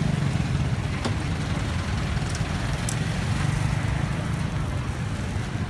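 A steady low motor hum under a faint even hiss, with a few small clicks.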